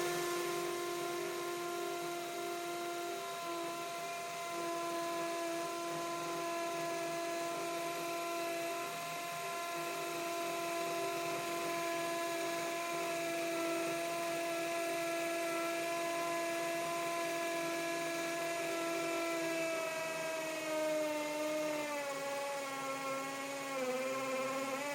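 Ryobi P213 cordless hammer drill running with a 3/16 masonry bit boring into a concrete paver, its motor holding a steady whine. Near the end the pitch sags and wavers as the drill bogs under the load.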